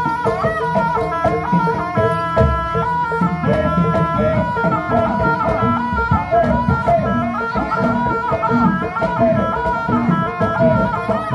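Jaranan gamelan music: drums and gongs keep a steady beat under a held, wailing melody line.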